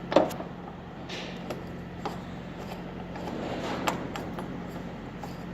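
Hand-work noises as a Torx bolt is fitted into the hardtop mount: a sharp knock just after the start, then a few light metal clicks and taps.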